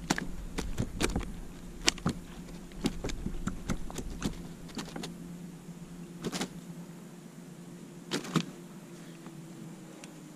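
Irregular clicks and knocks from handling a trout in a landing net on a kayak with a plastic fish lip gripper, thickest in the first few seconds and sparser later, over a faint steady hum.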